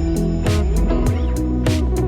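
Background music: a guitar-led instrumental with a steady drum beat and bass.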